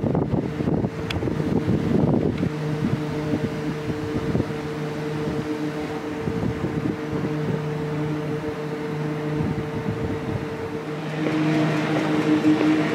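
A steady low mechanical hum with a few overtones, with wind buffeting the microphone in the first couple of seconds. About eleven seconds in, the hum gets louder and brighter.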